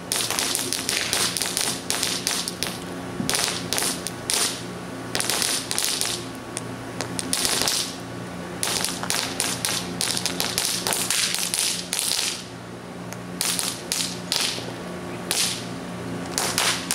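Crackling fountain firework crackling in the burning popsicle-stick stockade: rapid small pops and crackles coming in irregular clusters, among burning cardboard.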